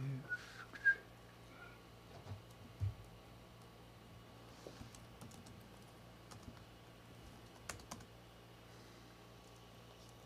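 Computer keyboard keystrokes, a quick cluster of taps in the first second followed by scattered single clicks, faint over a low steady room hum.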